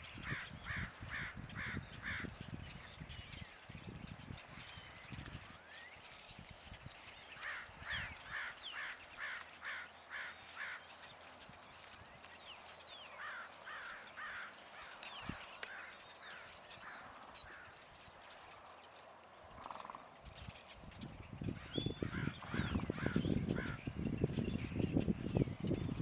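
A horse's hoofbeats thudding on arena sand, loud in the first few seconds and again from about 20 s on, faint while the horse is far off. Over them a crow caws in quick runs of five to seven calls, four times, with small birds chirping.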